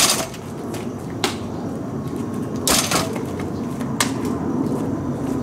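A baseball popping into the pocket of a restored 1950s Wilson A2151 leather glove on fly catches, sharp slaps at the start and again about two and a half seconds in, with lighter clicks between over steady outdoor background noise.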